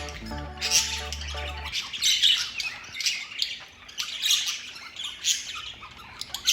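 Pet budgerigars (parakeets) giving sharp, high squawks and chirps, about one burst a second. Background music with a bass line plays under them and stops shortly after the start.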